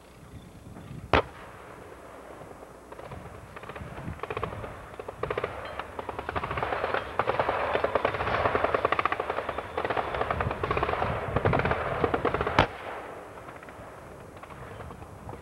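Machine-gun fire from tanks on a gunnery range: a long rapid rattle that builds from about three seconds in and runs for roughly nine seconds. Two sharp single gun reports are heard, one about a second in and a louder one as the rattle ends.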